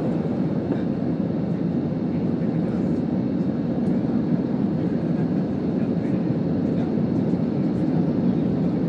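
Steady engine and airflow noise inside the cabin of a commercial airliner during takeoff, a dense low rumble at an even level, with a few faint light clicks of cabin rattle.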